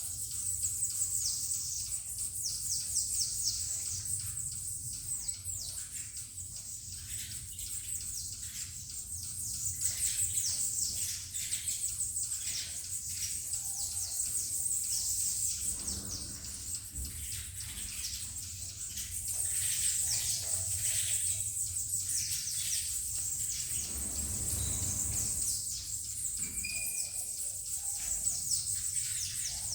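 Saffron finches (canário-da-terra) chirping and singing, many birds at once in a dense, continuous chatter of quick high chirps. A low rumble runs underneath, heaviest about three-quarters of the way through.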